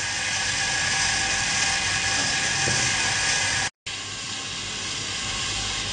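A steady, even hiss, broken by a brief dropout about two-thirds of the way in.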